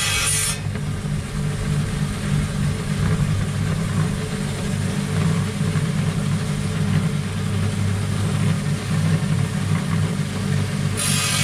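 Electric bench rock saw's motor running with a steady low hum while its wet circular blade cuts into a stone, a faint grinding over the hum.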